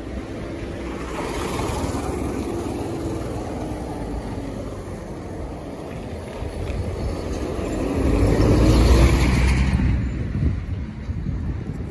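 Motor vehicles passing on a road: a smaller pass about two seconds in, then a louder one building to a peak about eight to nine seconds in and fading.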